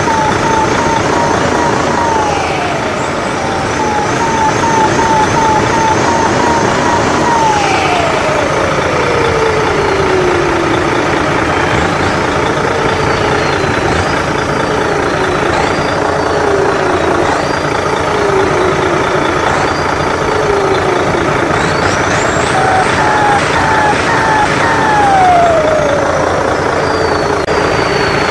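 Big battery-powered RC ten-wheel truck running its simulated engine and jet-turbo sound: a steady loud drone under a turbo whine that winds down in pitch and spools back up several times.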